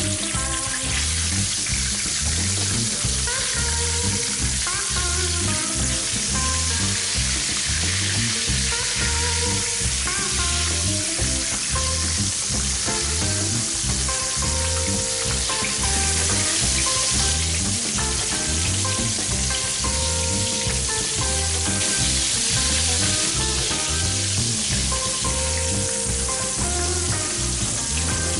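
Floured pork neck slices sizzling as they shallow-fry in hot oil in a pan, a dense steady crackling hiss. Background music with a steady beat plays under it.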